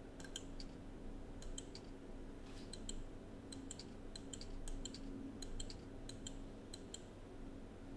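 A computer mouse clicking: about twenty short, faint clicks at irregular intervals, some in quick pairs, over a steady low hum.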